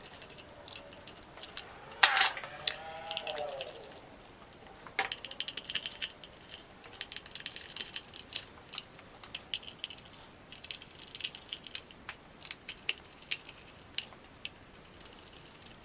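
A small screwdriver is working screws out of the plastic chassis plate of a WLToys 144001 RC buggy. It makes a run of light clicks, ticks and small rattles. About two seconds in there is a louder click with a brief wavering tone.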